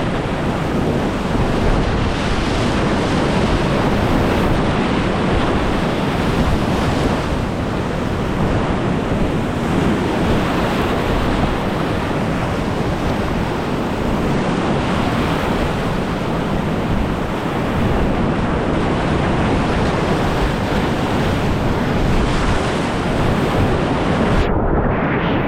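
Rushing whitewater rapids, loud and continuous, with water and wind buffeting the kayak-mounted camera's microphone. Near the end the sound turns suddenly muffled.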